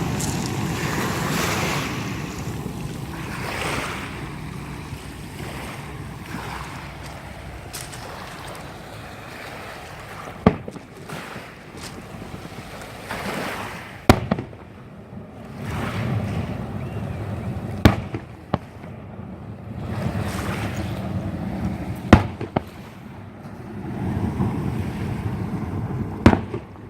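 Fireworks display: sharp bangs of exploding shells, about five of them some four seconds apart, over a low rumble that swells and fades.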